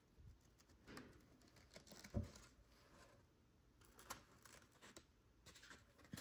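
Faint rustling and crinkling of origami paper being folded and creased by hand, as short scattered rustles and ticks, with one louder soft thump about two seconds in.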